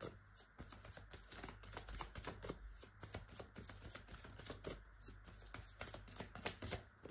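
A deck of tarot cards being shuffled by hand: a quick, uneven run of soft card clicks.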